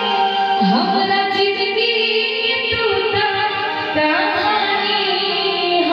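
Live Bhojpuri stage music: a keyboard holds sustained chords while a voice slides in pitch twice, and hand drums (tabla and dholak) play a short run of strokes in the middle.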